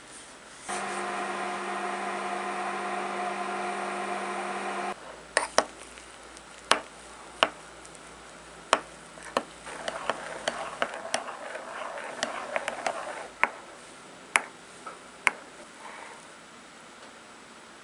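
A microwave oven hums steadily for about four seconds while it heats milk, marshmallows and chocolate, then stops abruptly. Then a metal spoon clinks and scrapes against a ceramic ramekin as the melted marshmallow mixture is stirred.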